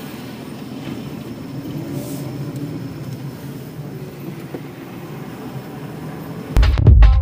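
Steady road and engine noise of a car driving. About six and a half seconds in, loud electronic dance music with a heavy beat cuts in suddenly.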